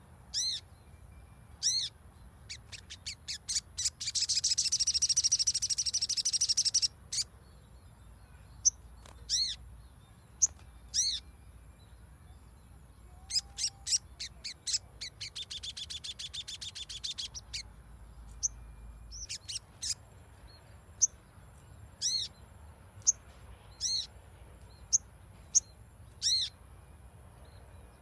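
Crimson sunbird calling: sharp, high call notes repeated every second or two, broken by two fast chattering trills of a few seconds each, one about four seconds in and one about fifteen seconds in.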